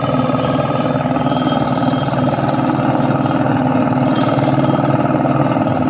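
Vehicle engine running steadily, with a fast, even firing pulse.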